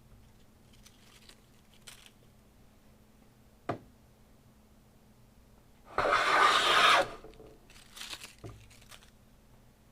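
Stanley No. 4 smoothing plane taking a single smoothing pass along a wooden board, cutting a shaving in one stroke of about a second, partway through. A sharp tick comes before it, and a few softer scrapes and a low knock follow the stroke.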